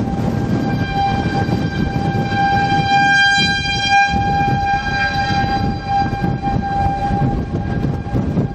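Outdoor tornado warning siren sounding a steady tone, swelling to its loudest about halfway through and then easing, over wind rumbling on the microphone.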